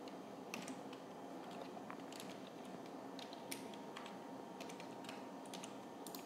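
Computer keyboard being typed on: faint, irregular key clicks as a username is entered.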